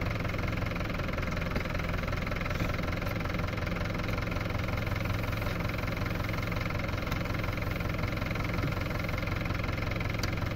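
Tractor's diesel engine idling steadily, a low even run with no revving.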